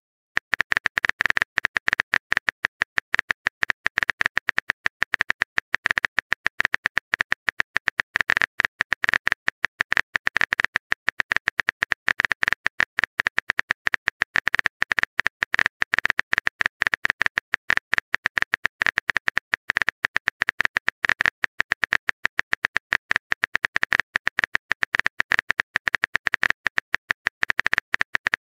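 Rapid, continuous phone-keyboard typing clicks, many a second, one short click per keystroke.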